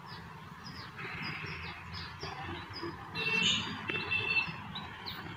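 Small birds chirping: a short, high, falling chirp repeated about three times a second, with a louder burst of calls a little past the middle.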